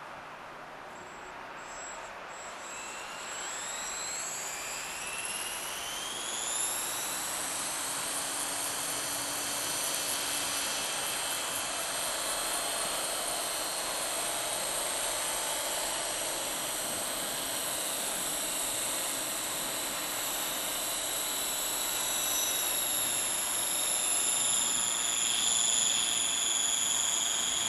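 Yamara Roto 480 radio-controlled model helicopter spooling up: a high whine rises in pitch over the first several seconds, then holds steady as the helicopter hovers.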